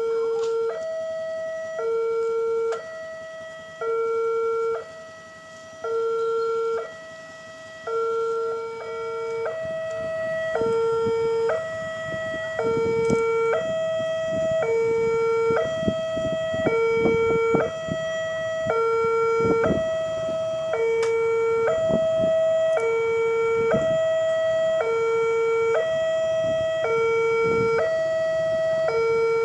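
Railway level-crossing alarm giving a two-tone electronic warning, alternating between a lower and a higher tone about once a second. A low rumble with knocks joins about ten seconds in.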